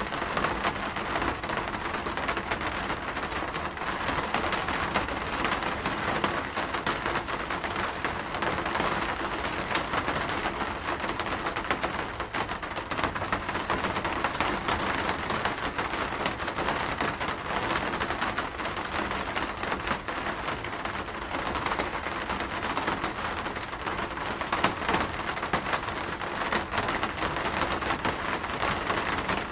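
Steady rain: an even hiss with dense, irregular ticks of single drops.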